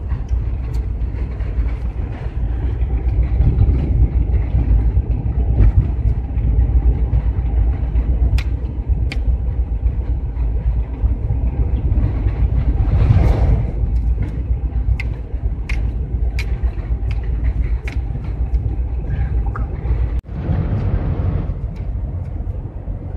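Steady low engine and tyre rumble inside the cab of a GAZelle van at highway speed, with scattered small rattles. About 13 seconds in, an oncoming lorry passes with a brief rising and falling whoosh. Near the end the sound drops out for an instant and then resumes.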